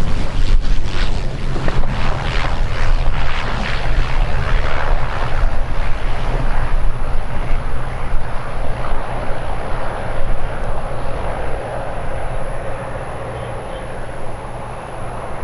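Aircraft engine noise from a plane, loud at first and gradually fading over the last few seconds.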